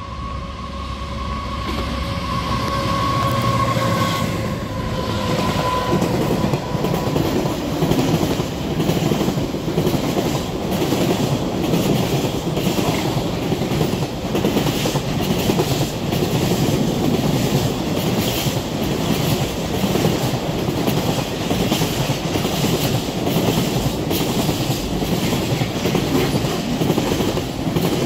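A diesel-hauled container freight train passing close below. A whine drops slightly in pitch over the first few seconds as the locomotive goes by, then the loaded container wagons rumble and clatter steadily over the rails.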